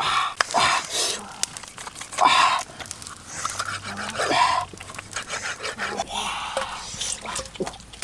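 A long knife blade scraped hard along a raw cow's leg and hoof on a flat stone, scraping the hide clean: rasping strokes of about half a second each, roughly one a second, irregular.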